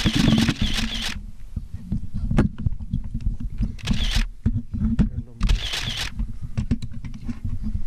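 A cluster of microphones on a podium being handled and bumped, with low knocks and rustles, and three short bursts of rapid camera-shutter clicking.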